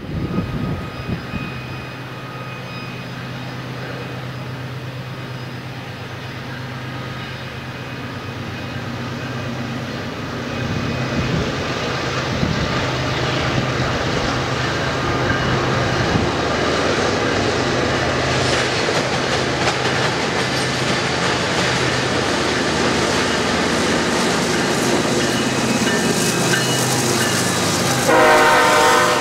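BNSF diesel locomotives leading an intermodal train approach and pass at speed: a steady engine drone that grows louder, with the wheels clattering and banging over the rail crossing diamond. The train horn blows loudly near the end as the locomotives go by.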